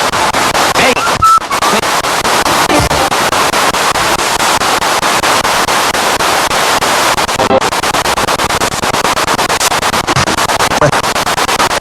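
Spirit box radio sweeping rapidly through stations: a loud, continuous stream of static chopped up at a fast, regular rate, with brief snatches of broadcast voice and music.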